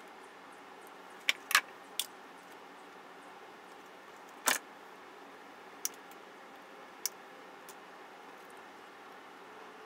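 Handling clicks and light clatter from wiring and small plastic parts being moved and fitted by hand: about seven short, sharp clicks spread irregularly, the loudest about a second and a half in and about four and a half seconds in, over a steady background hiss.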